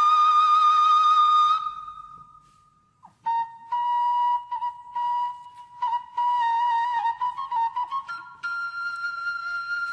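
Background music: a solo flute playing long held notes with small ornaments. It fades out about two seconds in and starts again after a short pause.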